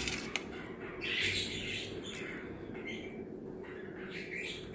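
A steel spoon stirring and scooping thick rice kanji in a steel plate: a light clink of metal on the plate just after the start, then soft, faint wet squelching of the gruel.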